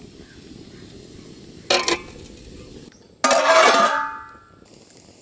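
A steel bowl is set down on a metal ring inside an aluminium pot of water with a short knock. Then an aluminium lid is put on the pot with a loud metallic clang that rings briefly before fading. A low steady background noise runs underneath.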